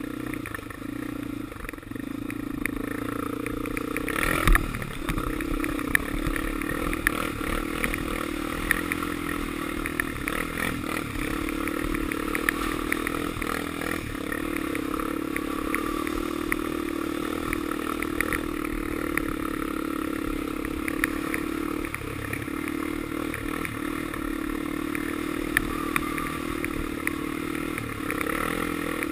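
A 2002 Honda 400EX ATV's single-cylinder four-stroke engine running steadily under way, with scattered clattering knocks as the quad rides over rutted snowy ground. There is one loud thump about four and a half seconds in.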